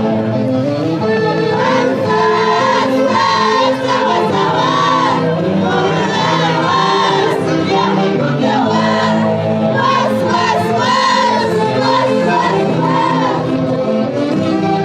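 Andean orquesta típica playing festival music: saxophones and violins carry a wavering melody in unison over a steady accompaniment, with no pause.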